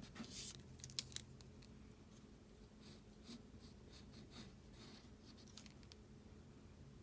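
Faint pencil strokes scratching on paper, with a couple of sharp clicks about a second in.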